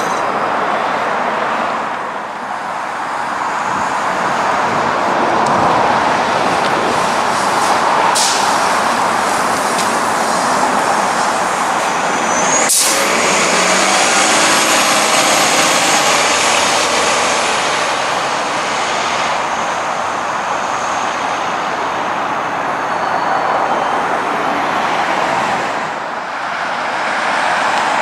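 Steady road-traffic noise, broken by one sharp click about halfway; after it a TTC city bus pulls away around a curve, with a high steady whine above its engine noise.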